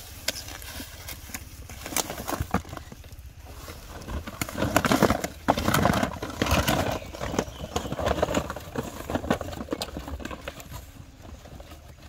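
Dozens of small cardboard phone boxes tumbling and knocking together as a large cardboard carton is tipped over and emptied onto the ground. The knocks are loudest and densest about halfway through.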